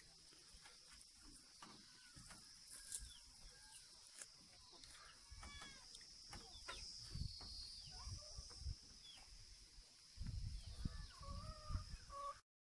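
Faint farmyard ambience: scattered bird chirps and animal calls over a steady high-pitched hiss. There is low rumbling on the microphone from about ten seconds in.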